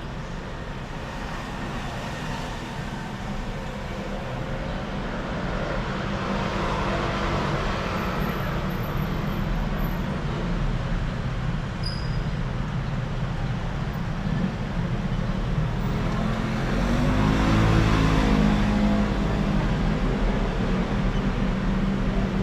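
Road traffic noise that rises and falls as vehicles pass, with the loudest pass about three quarters of the way through.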